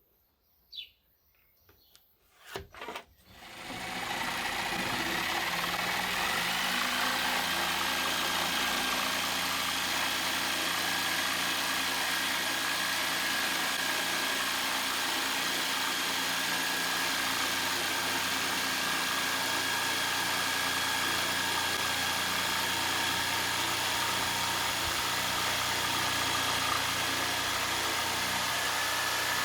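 A few light clicks, then a Bosch PST 800 PEL electric jigsaw starts about three seconds in and runs steadily, its motor and reciprocating blade giving a constant buzzing noise with a steady high whine.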